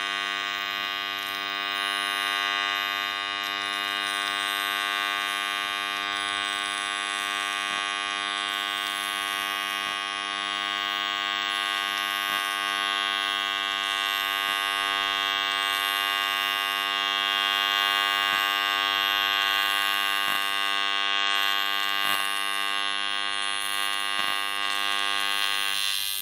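AC TIG welding arc on aluminum from an inverter welder: a steady buzzing hum that cuts off suddenly near the end as the arc is broken.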